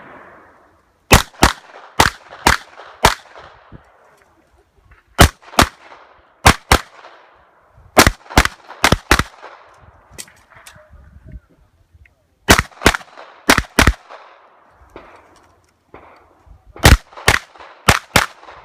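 Open-division competition pistol firing about twenty sharp shots, mostly in quick pairs and short strings, with pauses of a second or more between strings.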